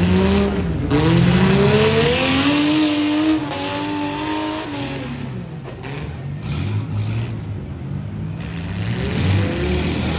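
Demolition derby car engines running hard, one revving up with its pitch climbing for a few seconds and then dropping away, with another short rev near the end.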